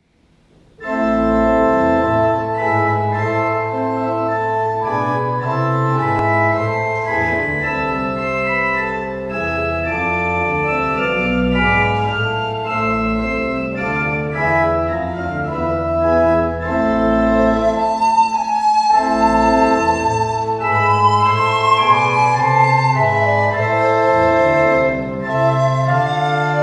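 Church organ playing sustained chords over low bass notes, starting about a second in; in the second half a melody line stands out above the chords.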